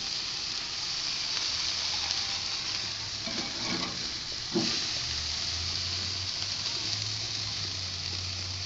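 Burger patties sizzling over hot charcoal, grease dripping onto the coals: a steady hiss. A short, sharp knock comes about four and a half seconds in as a metal spatula lifts a patty on the grill grate.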